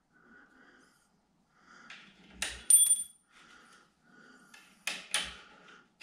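Light metallic clicks as a small strip of metal shim is handled against the metal shower-door frame extrusion. There is a soft tap a little past two seconds, then a sharp click that rings briefly, and two more clicks about five seconds in.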